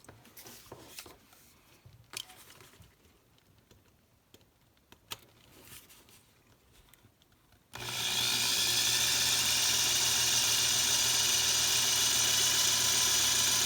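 A few light handling clicks and taps. About eight seconds in, a power drill starts suddenly and runs steadily with a 9/64-inch bit, drilling out the rivet that holds a die-cast toy car's base.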